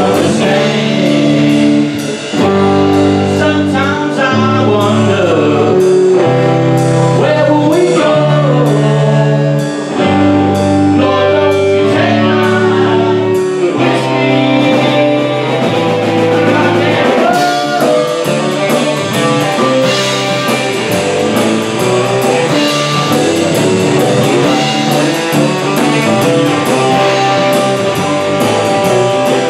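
Live rock band playing a blues-rock number: electric guitar and bass over a Gretsch drum kit, with a man singing into a microphone.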